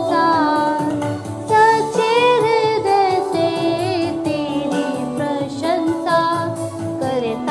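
A woman singing a Hindi Marian devotional song solo, in long held and gliding melodic lines.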